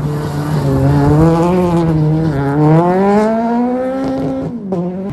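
Rally car engine revving hard on loose gravel. The pitch dips, then climbs steadily for about two seconds, then drops abruptly near the end.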